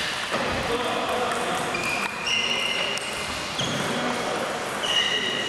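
Table tennis balls clicking on tables and bats at several tables across a reverberant sports hall, with short high squeaks scattered through, such as sport shoes make on the hall floor, over a steady murmur of voices.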